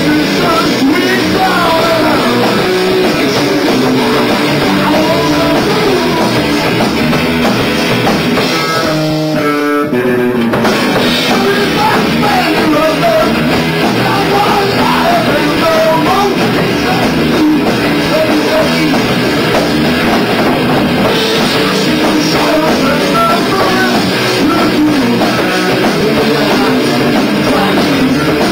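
Live rock band playing loudly: electric guitar, bass guitar and drum kit together, with a wavering lead line over a steady beat.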